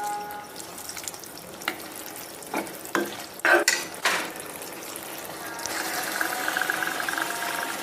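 A spoon stirring grated carrots and milk in a kadhai over the heat, with several scrapes and knocks against the pan over a soft sizzle of the mixture cooking. A faint steady hum comes in about two-thirds of the way through.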